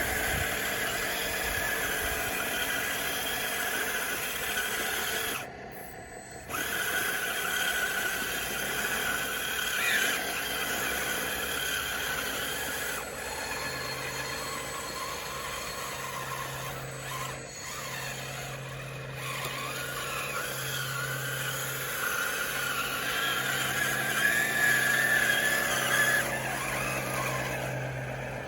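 DXR2 RC bulldozer's motors, gears and tracks whining and squealing as it works, the pitch wavering with the load. The sound briefly drops out about six seconds in, and a steady low hum joins about halfway through.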